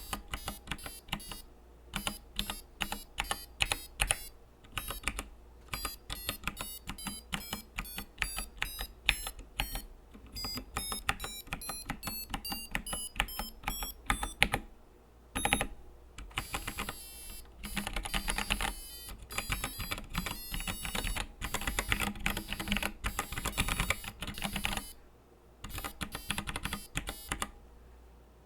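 Preonic ortholinear mechanical keyboard being typed on, each keypress clacking and sounding a short beep note from its built-in piezo speaker. About a third of the way in, the notes climb step by step in pitch.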